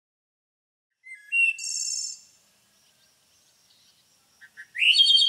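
A songbird singing two short phrases, one about a second in and one near the end. Each phrase is a few clear whistled notes leading into a high buzzy trill.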